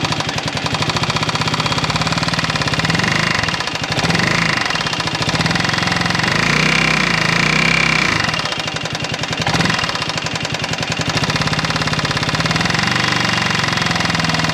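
Buggy's four-stroke scooter engine running with a rapid, hard clacking over the engine note, which swells a few times. The owner cannot place the noise but believes it has to do with the valves, sounding like valve clatter that gets louder with revs; silvery oil also makes him suspect the piston or cylinder.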